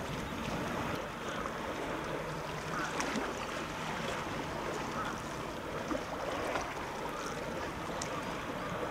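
Outdoor wind noise rushing on the microphone over the wash of sea water, steady throughout with a few faint ticks.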